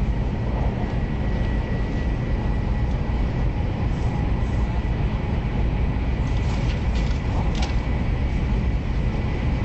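Steady low rumble of a moving passenger train heard from inside the carriage, with a faint constant whine over it and a few light ticks and rattles about six to eight seconds in.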